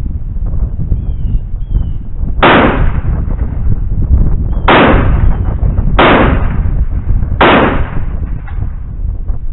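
Four shots from an SDX 12-gauge semi-automatic shotgun, the first about two seconds in and the next three following about two, one and a half, and one and a half seconds apart, each with a short fading echo.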